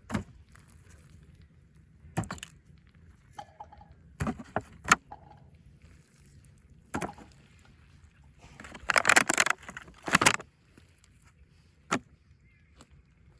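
Irregular knocks and rustles of fallen lemons and limes being picked up and dropped into a bag, with a denser burst of rustling about nine seconds in.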